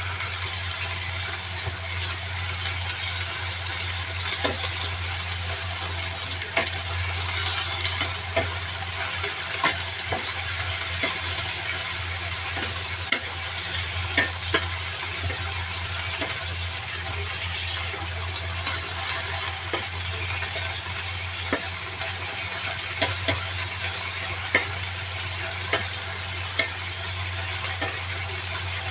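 Mixed vegetables stir-frying in a pan with a little water: steady sizzling, with frequent clicks and scrapes of the spatula against the pan. A steady low hum runs underneath.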